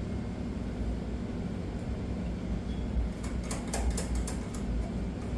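Light metallic clicks and taps, several in quick succession about three seconds in, as small pressure-washer unloader parts are handled and adjusted, over a steady low hum.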